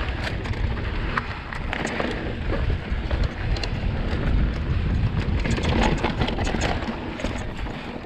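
2020 Vitus Sommet CRS full-suspension mountain bike riding fast down a dirt singletrack: tyres rolling over the dirt with frequent small ticks and rattles from the bike, and wind rumbling on the action camera's microphone.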